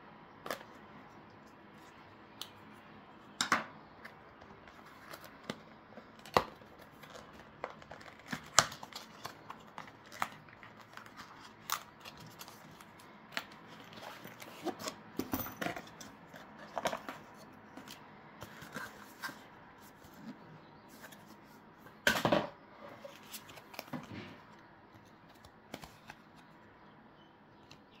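A small cardboard box being opened by hand: a knife blade slitting the seal sticker, then the end flap pulled open and card inserts slid out. Scattered clicks, scrapes and paper rustles, with a louder cluster of handling knocks about three-quarters of the way through.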